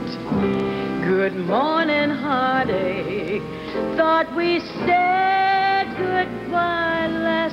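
A woman singing a jazz ballad, with gliding, wavering held notes, accompanied by grand piano and orchestra.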